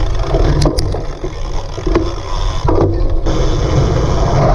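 Cyclocross bike ridden hard over a bumpy course, heard from a camera on the rider or bike: steady wind rush and rumble on the microphone with the bike rattling over rough ground, and a few sharp knocks over bumps.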